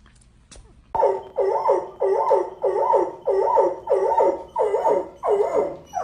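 A dog barking over and over in a steady rhythm, about two barks a second, starting about a second in.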